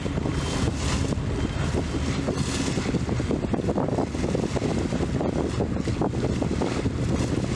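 A ferry's engines running with a steady low hum, mixed with wind buffeting the microphone on deck.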